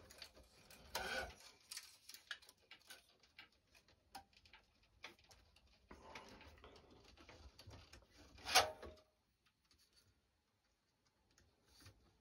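Faint scattered ticks and rubbing of synthetic racket string being woven by hand through a tight, dense string bed, with one louder brief rasp of string drawn through the strings about eight and a half seconds in.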